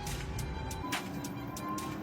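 Background music with held notes over light, regular percussive ticks.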